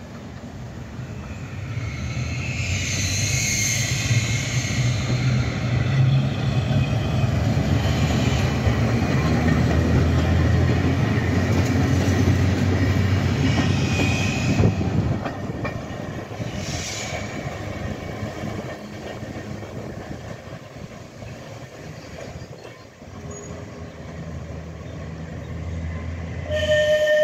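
A Manx Electric Railway tram towing an open trailer car rolls past close by: a low hum and rumble of wheels on rail that builds over a few seconds, stays loud for about ten seconds, then fades. There are brief high wheel squeals a few seconds in, about halfway and soon after. Near the end a tram's whistle sounds, a steady note.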